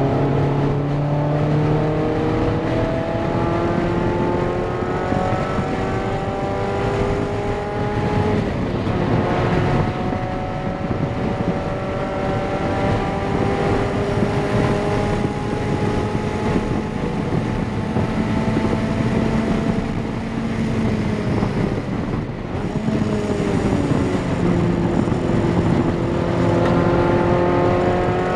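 Mazda MX-5 NC's 2.5-litre four-cylinder engine heard from inside the cabin under hard acceleration, its pitch climbing through the revs. An upshift drops the pitch about eight seconds in, it climbs again, and a lift with a downshift a little past twenty seconds comes before it pulls again. Tyre and wind noise run underneath.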